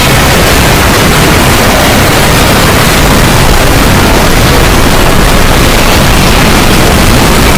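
Loud, unbroken, distorted noise like static, spread evenly from deep rumble to high hiss, with no breaks or changes.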